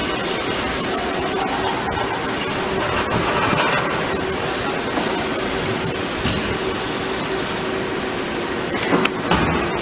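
DAMA GMDC-3100 CNC drilling machine's spindle drilling into a metal plate: a steady machine hum with one constant tone under the cutting noise. Two short, louder knocks come near the end as the drill head moves.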